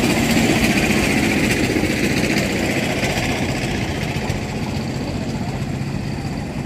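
A motor engine idling steadily, a low, even rumble that fades a little toward the end.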